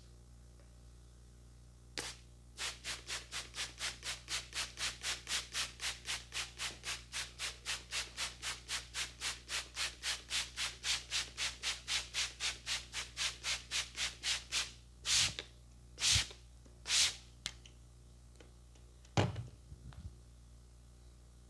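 Brisk rhythmic rubbing strokes, about four a second, ending in three slower, longer strokes.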